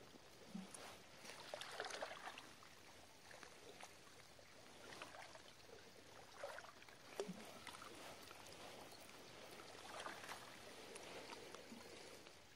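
Faint sea water lapping and sloshing against shore rocks, in a few soft, irregular surges.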